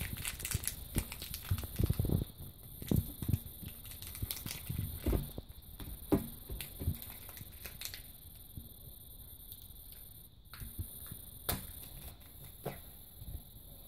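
Small clear plastic wrapper being picked and peeled open by hand, crinkling in irregular little clicks and rustles, busy at first and thinning out after about eight seconds.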